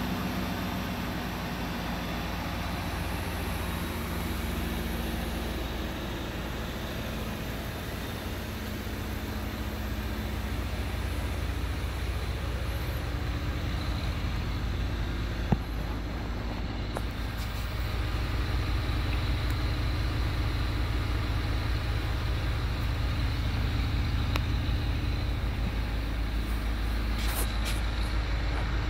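A 2006 Cadillac DTS's 4.6-litre Northstar V8 idling steadily. It is heard first at the engine bay and grows louder in the second half, as the sound comes from the twin exhaust tips. There is a single sharp click about halfway through.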